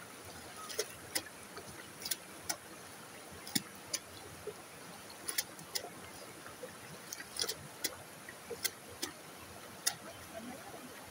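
Creek water running over rocks, with irregular sharp clicks and small splashes, about one or two a second, from hands working in the shallow water.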